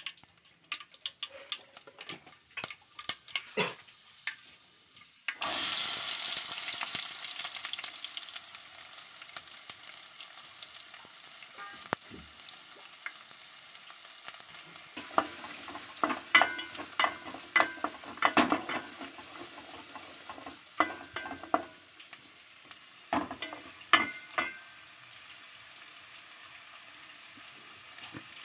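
Mustard and fenugreek seeds crackling in hot oil in a steel pan. About five seconds in, chopped shallots go into the oil with a sudden loud sizzle that slowly dies down. Later a wooden spatula knocks and scrapes against the pan as the shallots are stirred.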